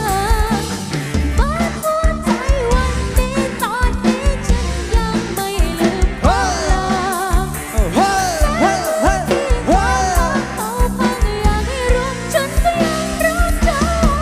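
Lam sing band music: a wavering melodic lead with strong vibrato over a steady drum and bass beat.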